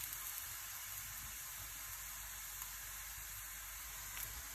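Oil sizzling gently under an onion-and-green-chilli roti frying in a non-stick pan: a steady, even hiss.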